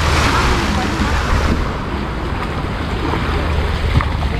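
Small waves washing up onto the sand, with wind rumbling on the microphone. The wash is strongest in the first second and a half, then eases.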